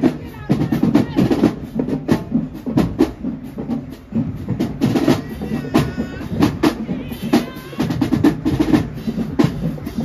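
Marching band drumline playing a cadence, with snare and bass drums striking densely and without a break.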